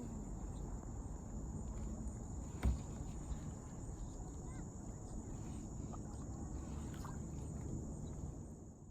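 Insects singing in a steady high-pitched drone over a low background rumble, with a single knock about two and a half seconds in.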